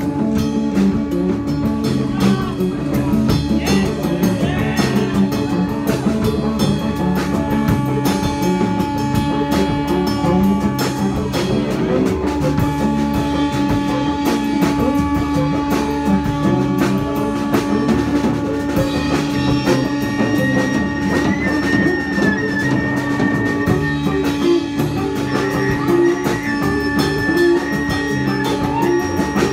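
Live punk rock band playing an instrumental stretch loudly: drum kit, guitar and bass driving a steady beat, with a sustained held note running through it.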